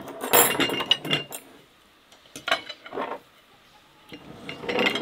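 Forks clinking against plates and glass tea glasses and saucers in three short flurries of taps, some strikes leaving a brief bright ring.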